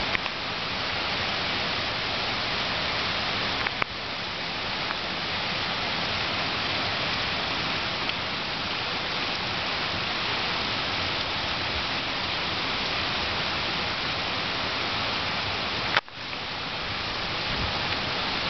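Heavy rain pouring down onto a flooded street and pavement, a steady, even hiss of downpour, broken by two brief clicks about four seconds in and near the end.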